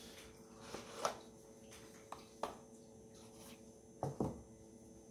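Boxes and packaging being handled on a table: a few short knocks and taps, one about a second in, one about two and a half seconds in and a close pair about four seconds in, over a faint steady hum.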